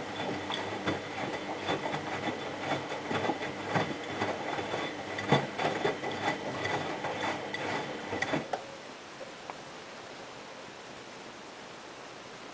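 Miele Hydromatic W734 washing machine running its wash cycle: the motor hums while the drum turns with irregular clatter and knocks, then the motor cuts off suddenly about two-thirds of the way through, leaving a faint low hum. The owner finds the motor bearings a bit loud.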